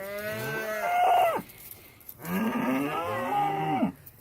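Black Angus calf bawling twice, two long calls that rise and then fall in pitch, with a short pause between them.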